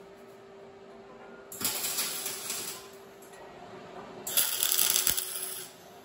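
MIG welder tacking steel angle iron: two short bursts of crackling arc about a second each, the second louder, with a steady hum underneath.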